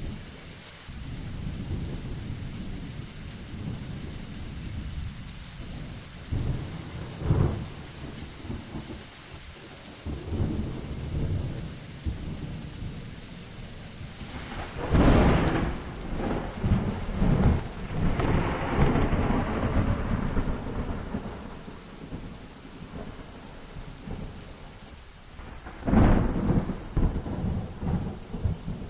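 Thunderstorm with rolling thunder rumbling low throughout. Sharp cracks come about a quarter of the way in, about halfway through, and near the end. The middle crack is the loudest and is followed by several seconds of rolling rumble, with rain falling steadily underneath.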